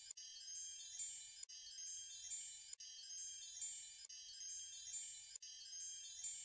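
High tinkling chimes, many tones ringing over one another, with a short break about every 1.3 seconds as the loop repeats.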